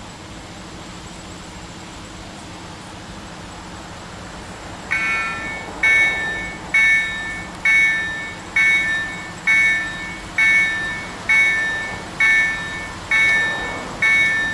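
Level-crossing warning signal from an electronic EDE-1 sound generator, starting about five seconds in: a loud bell-like ding about once a second, each strike dying away. It is the crossing's alarm, sounding as the crossing closes ahead of an approaching train.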